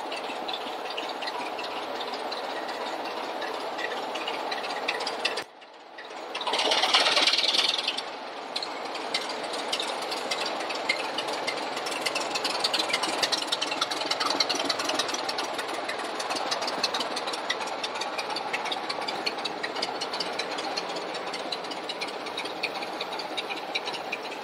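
Class 24 diesel locomotive's Sulzer six-cylinder engine running with a steady knocking clatter as it moves slowly past. A brief, louder hissing burst comes about seven seconds in.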